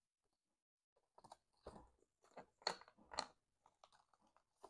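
Frosted plastic cash-envelope cards and paper sheets being handled and tucked into a binder wallet: a run of soft, irregular crinkles and rustles starting about a second in, loudest a little past the middle.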